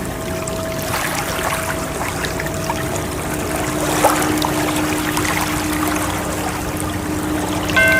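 Steady rush of water, ocean waves, with soft sustained tones held over it; a higher tone comes in near the end.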